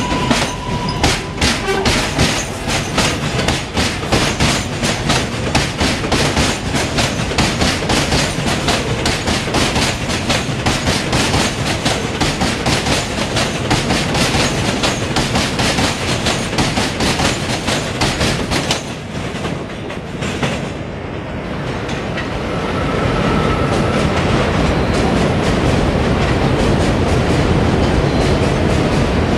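R188 subway train pulling out of an elevated station, its wheels clicking over the rail joints faster and faster as the cars pass close by. After about twenty seconds the clicks give way to a steady rumble of train noise on the elevated track.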